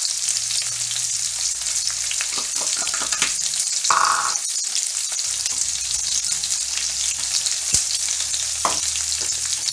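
Bitter melon (nigauri) strips and bacon frying in a pan: a steady sizzle with scattered crackles. A short louder sound about four seconds in.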